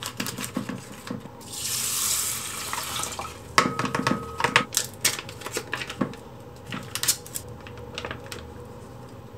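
Seasoning broth poured from a foil pouch onto uncooked rice in a rice cooker's inner pot, a liquid pour lasting about a second and a half, followed by crinkling of the plastic and foil packaging.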